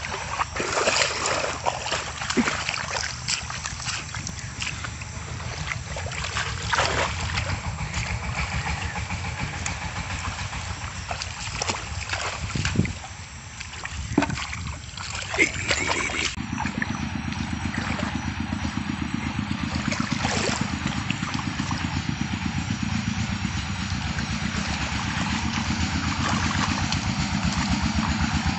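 A small engine running steadily with a fast, even pulse, mixed with splashing and sloshing of water in the first half. About sixteen seconds in the sound changes abruptly, and the engine becomes louder and steadier.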